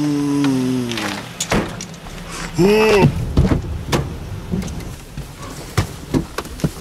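Car engine running, its pitch dropping as it revs down in the first second, then a run of knocks and thumps against the car body, with a short rising-and-falling cry about three seconds in.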